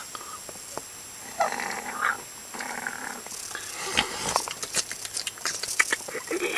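Growling, animal-like vocal sounds in short bursts, followed by scattered clicks and short noises.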